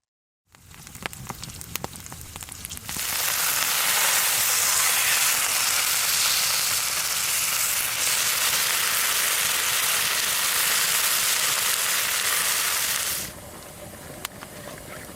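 Chicken frying in a pan over a campfire: a loud, even sizzle starts about three seconds in and stops sharply near the end. Faint crackles of the wood fire come before and after it.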